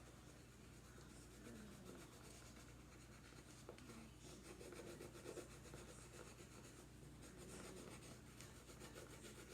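Faint scratching of a pen drawing on paper, over a low steady hum.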